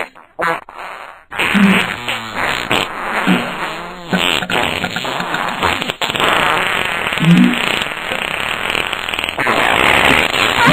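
A string of fart noises, one after another, with wavering, bending pitch, after a brief pause about a second in.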